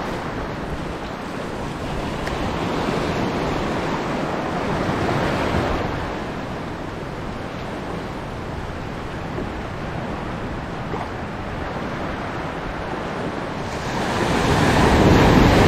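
Sea waves washing in, with wind on the microphone; the wash swells a couple of seconds in, eases, and grows loud again near the end.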